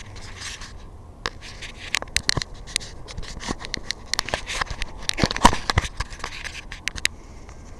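Irregular clicks, taps and scratchy scraping of objects being handled, with a louder cluster of knocks about two thirds of the way through.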